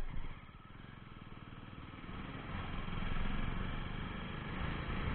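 Jawa 42 motorcycle's single-cylinder engine running under way. It is quieter at first and grows louder as it picks up from about two seconds in.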